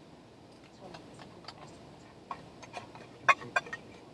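Eating utensils clicking and clinking against dishes: scattered light taps, with two louder, ringing clinks a little over three seconds in.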